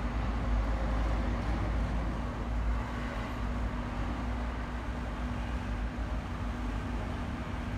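Steady low background rumble with a faint steady hum under it, level throughout and without distinct knocks or calls.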